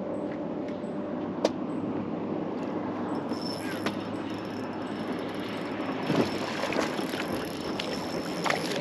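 Electric bow-mounted trolling motor humming steadily, a higher whine joining about three seconds in, with a few sharp clicks over it.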